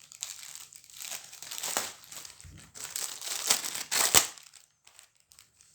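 Packaging wrap crinkling and rustling as it is handled and pulled off a new soundbar. The loudest rustles come about three and a half to four seconds in, and it then dies down to faint rustles.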